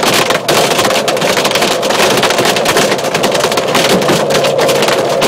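Hailstones from quarter to golf-ball size hitting a truck's cab and windshield, a dense, continuous clatter of hard knocks heard from inside the cab.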